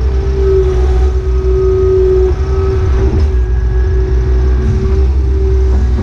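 Takeuchi TB035 mini excavator running under load as the bucket digs out sod and swings: a steady diesel rumble with a constant hydraulic whine, and a short burst of noise about three seconds in.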